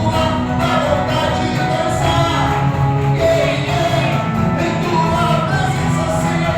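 Live worship band playing a gospel song, with singing and drums.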